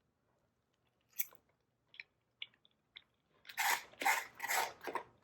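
Dishes of food being handled: a few light clicks, then a run of short scraping, crinkling strokes near the end.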